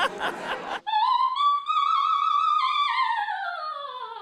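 Operatic soprano singing: she rises to a high note held with vibrato, then sings a long, slowly falling line.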